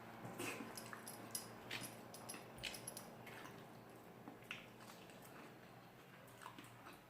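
A person eating rice and curry: faint wet chewing and mouth smacks, with irregular short squishes and clicks.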